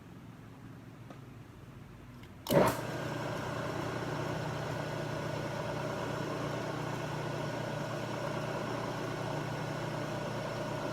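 Milling machine spindle switched on about two and a half seconds in, with a brief loud surge as it starts, then running steadily with a hum.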